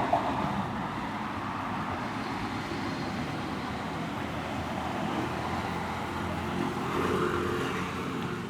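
Steady roadside traffic noise from passing vehicles, swelling slightly near the end as one passes a little closer.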